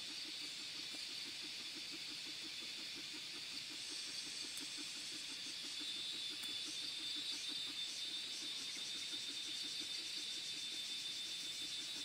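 Steady high-pitched insect drone, with a faint low pulsing beneath it about four or five times a second; it grows a little louder about halfway through.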